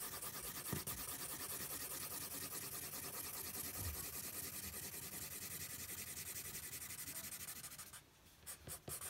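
Black marker pen scratching across drawing paper in rapid, repeated hatching strokes as a large area is inked solid. The stroking stops about eight seconds in, followed by a few light taps.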